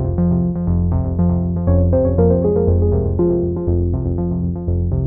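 Background music: a quick, steady pulse of repeated notes over a bass line that changes note about twice a second.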